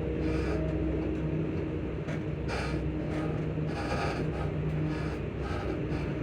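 ScotRail Class 334 electric multiple unit's traction motors humming with steady low tones, heard from inside the carriage, with short irregular rattles over them.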